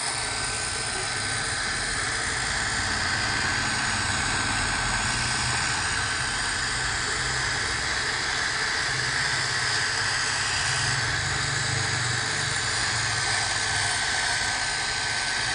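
Handheld hair dryer running steadily: a constant rush of blown air with one steady high whine from its fan motor.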